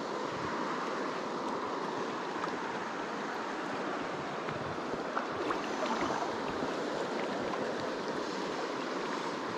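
Shallow creek water running over a cobble riffle: a steady rushing.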